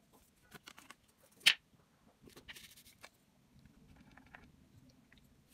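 Painting supplies being handled: a plastic paint palette and brush knocked and moved about, giving small clicks and rustles, with one sharp click about a second and a half in.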